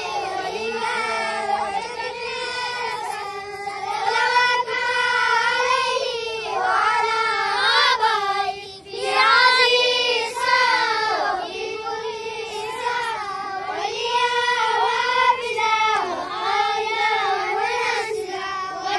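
A group of children chanting an Arabic dua (supplication) in unison, in a melodic, sing-song recitation with a brief pause about halfway through.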